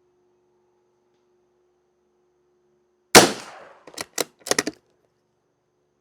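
A single .22 LR shot from a Savage Mark II FV bolt-action rifle about three seconds in, followed within a second by several quick sharp clicks as the bolt is worked to eject and chamber the next round.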